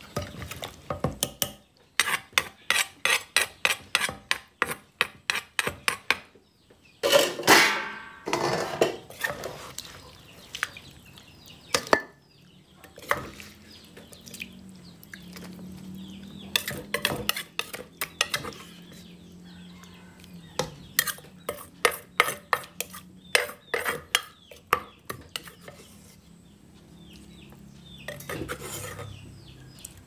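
Som tam being pounded with a wooden pestle in a clay mortar, quick knocks about four a second, with a spoon scraping and tossing the shredded papaya. Later a metal spoon scoops the salad onto a metal plate, clinking against it.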